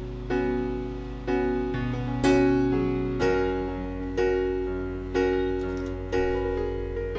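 Background piano music, with notes or chords struck about once a second and fading between strikes.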